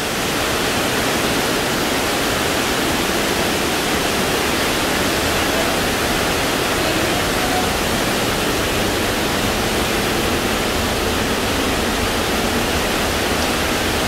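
Steady rush of falling water from the Misol-Ha waterfall, an even noise without breaks or changes.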